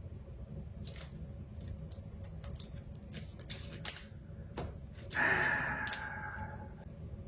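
Scattered small clicks and taps of tools and smartphone parts being handled on a work surface, with a brief hiss of noise just past the middle.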